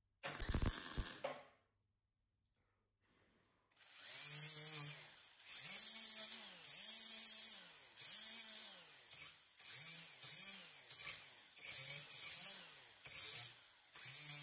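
A short blast from a compressed-air blow gun, then a small handheld cordless power tool run in about a dozen short trigger bursts, its motor spinning up and down in pitch with each burst.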